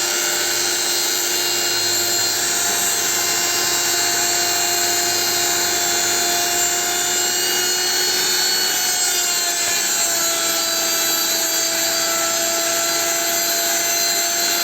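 Kraissmann 910 OFT 910 W router, used as a CNC spindle, running at high speed with a steady high whine. Its pitch drops slightly about nine seconds in, then holds.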